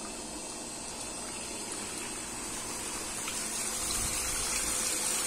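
Pool waterfall feature pouring a steady stream of water into the pool, a continuous rushing splash that grows louder over the last couple of seconds.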